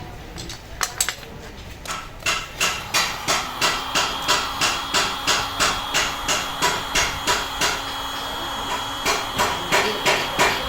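A hammer beating car-body sheet metal in steady blows, about three a second, with the metal ringing. A few lighter taps come first, and the blows pause briefly before resuming near the end.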